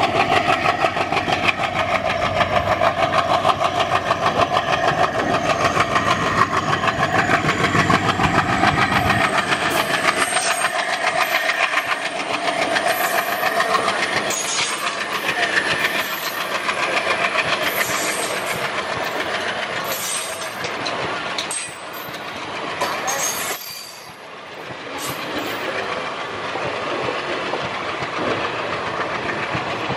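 WDG3A diesel locomotive's ALCo 251 engine working hard under full throttle as it accelerates, its deep note dropping away after about nine seconds. From then on the rhythmic clickety-clack of the passenger coaches' wheels over rail joints carries on as the coaches roll past.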